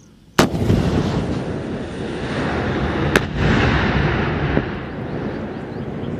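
Shoulder-fired anti-armour weapon fired: a sharp launch blast about half a second in, followed by a long rolling rumble echoing off the hills. About three seconds in, a second sharp crack as the round hits the hillside, and the rumble dies away slowly.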